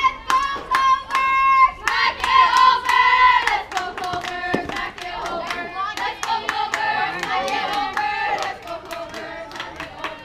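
A group of young voices chanting a sing-song softball cheer to rhythmic hand clapping, about three claps a second.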